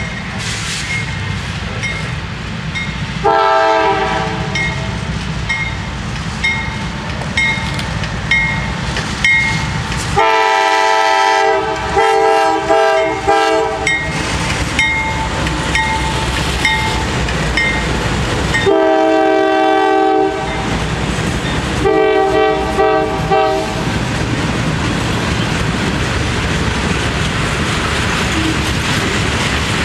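A CSX freight locomotive's air horn sounds several blasts as the train approaches and passes: a short one, two long ones and a broken final one, over a bell ringing in an even beat. After the horn stops, the freight cars roll by with a steady rumble and wheel clatter.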